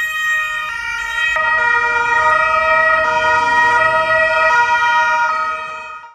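Police vehicle sirens sounding loud and steady, their several tones changing slightly about every second.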